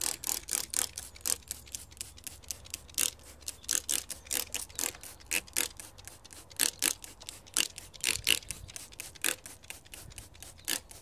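P400 wet-and-dry paper rubbed by hand over body filler on an alloy wheel, in quick back-and-forth strokes of about four a second, stopping just before the end.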